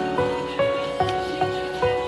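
Soft background music: gentle piano-led instrumental with a steady beat.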